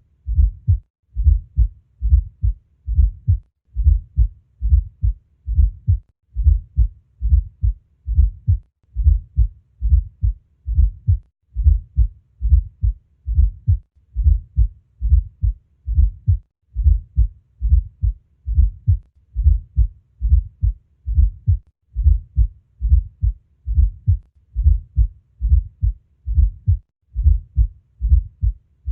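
Heart sounds on auscultation with a fourth heart sound (S4): low thuds in regular groups of three, a little over one group a second, the S4 falling just before the first heart sound as an atrial gallop. An S4 is the sign of the atrium pushing blood into a stiff left ventricle.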